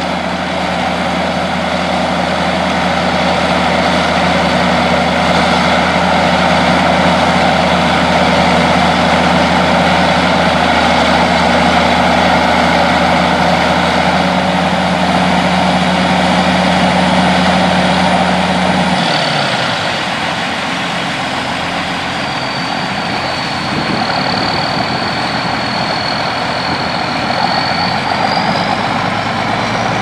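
Farm tractor engines running steadily while a Brent grain cart's unloading auger pours shelled corn into a gravity wagon. About 19 seconds in, the steady low engine hum drops away as the auger is shut down.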